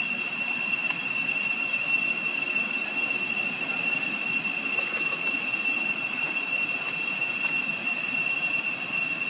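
Steady, unbroken high-pitched drone of cicadas, one shrill tone with an overtone above it.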